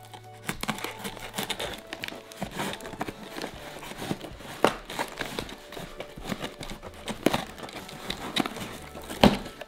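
Scissors cutting through the packing tape on a cardboard shipping box: a run of snips, scraping and crinkling of tape against the cardboard, with a sharp snap near the end.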